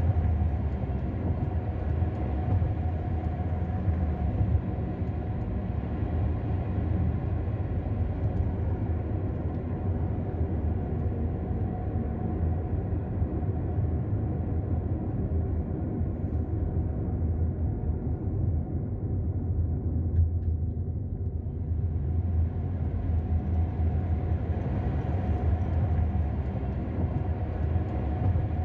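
Steady road and engine rumble of a moving car heard from inside, with a constant low hum. The higher hiss dulls for a few seconds past the middle, then returns.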